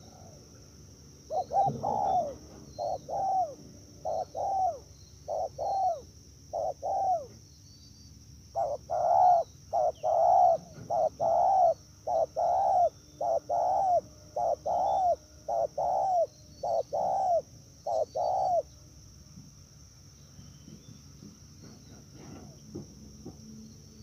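A dove cooing: a long run of short, arched coo notes, one to two a second, in two bouts with a brief pause between, stopping a little past the middle. A steady high insect drone carries on underneath.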